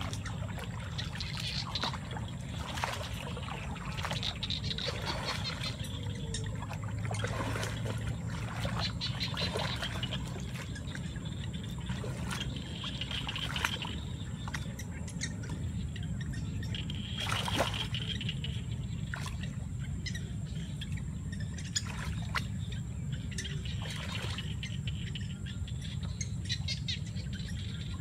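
Water splashing and trickling irregularly in shallow water, with short sharp splashes now and then over a steady low rumble. Birds are chirping.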